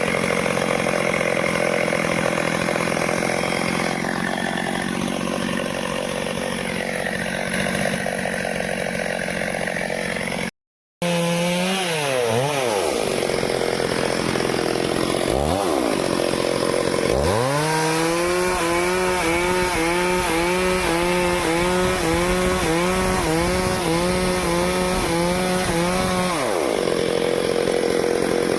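Stihl two-stroke chainsaw running hard while cutting teak wood. Its revs rise and fall, and later the engine pitch dips and recovers in a steady rhythm as it works under load. The sound breaks off for a moment before the middle.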